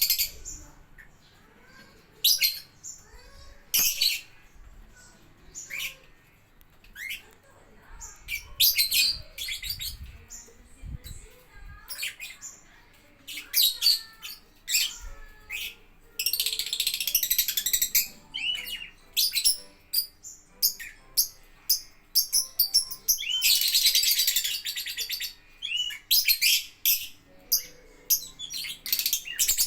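Lovebirds calling: many short, shrill chirps, with two longer stretches of rapid high-pitched chattering.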